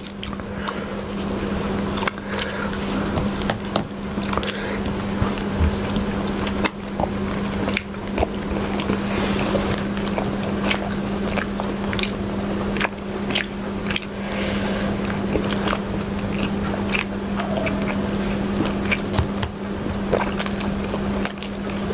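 Two people chewing and biting grilled chicken kabab close to the microphone, with scattered wet mouth clicks and smacks, over a steady low hum.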